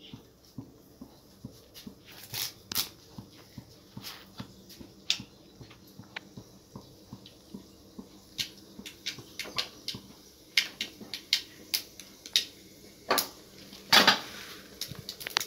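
Mustard seeds popping and spluttering in hot oil in a steel kadai: scattered sharp pops that come thicker from about halfway, with a few louder cracks near the end.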